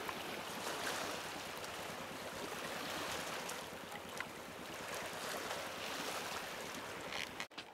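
Wind and small waves washing on a shallow, rocky seashore: a steady rushing noise that cuts off suddenly near the end.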